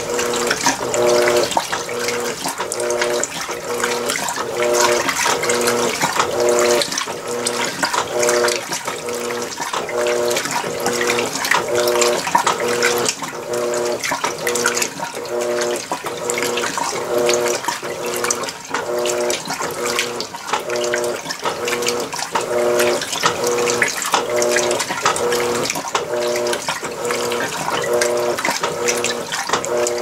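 Electrolux Premium Care LWI13 washing machine in its first rinse: water splashing and sloshing in the tub while the motor hums in short, evenly repeated pulses, about three every two seconds, as the agitator works back and forth.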